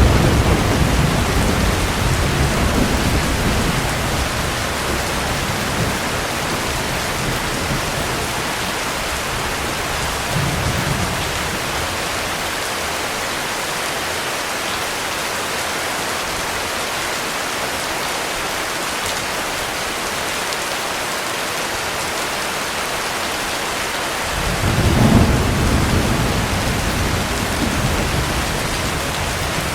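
Heavy rain falling steadily, with thunder rumbling low: one long roll at the start that fades over a few seconds, a short rumble about ten seconds in, and a stronger roll of thunder about 25 seconds in.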